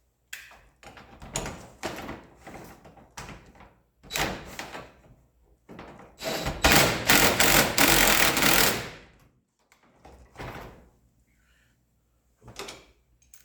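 A power driver runs for about three and a half seconds, driving a self-drilling screw to mount a garage door lock bracket. Before it come several short knocks and clatter from handling the metal parts and screws, and a few more knocks follow near the end.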